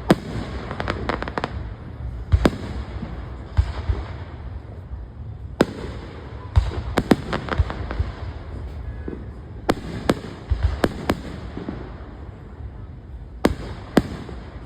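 Fireworks going off: sharp bangs and cracks at irregular intervals, some in quick clusters, over a steady low background rumble.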